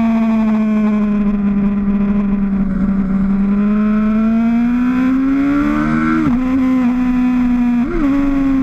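Motorcycle engine running at steady high revs under way. The pitch climbs slowly, drops sharply at a gear change about six seconds in, and gives a quick rev flick near the end.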